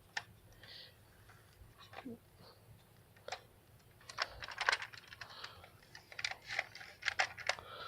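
Screwdriver clicking and scraping against a screw as it is backed out of a plastic Nerf blaster shell, with plastic parts being handled. Sparse faint clicks at first, then a run of quick small clicks from about four seconds in.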